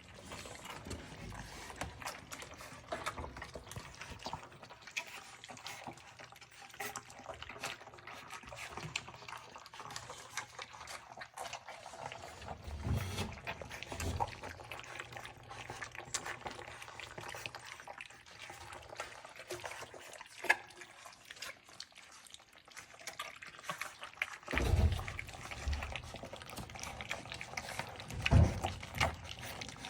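Bulldog puppies eating wet food: a steady run of small wet lapping and smacking clicks, with a few dull thumps along the way.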